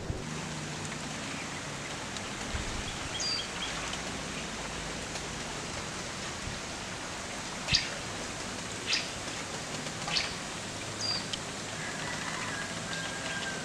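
Steady outdoor background hiss with a few short, high bird chirps: three sharp ones about a second apart just past the middle, and a couple of faint notes elsewhere.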